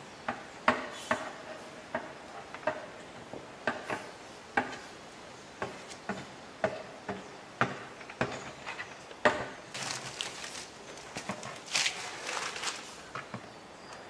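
Paper instruction leaflet being unfolded and handled: a string of sharp crinkles and snaps about once a second, then longer rustles of the paper near the end.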